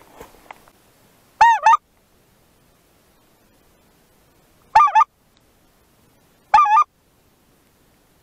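Three loud two-note goose honks: one about a second and a half in, one near the middle and one near the end, each lasting well under half a second.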